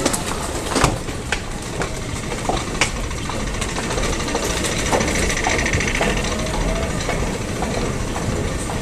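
Steady rumbling hum of a metro station passageway with moving walkways, with scattered sharp clicks throughout and a faint high warble about five seconds in.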